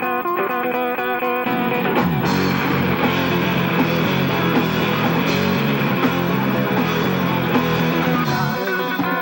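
A live rock band plays electric guitars and a drum kit. A lone guitar riff is joined by the full band about two seconds in, and near the end the low end drops away, leaving the guitars.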